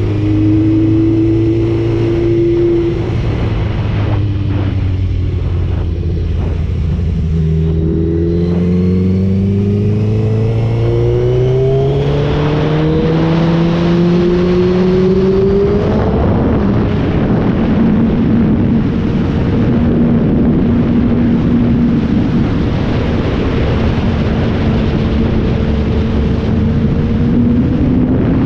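Motorcycle engine on the move, its pitch climbing steadily as it accelerates from about eight seconds in. From about sixteen seconds a loud wind rush covers it while the engine holds a steady pitch at cruising speed.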